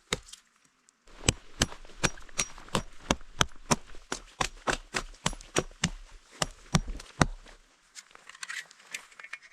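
Wood being broken up by hand: a quick run of sharp woody cracks, about three a second for some six seconds, then softer scraping of wood near the end.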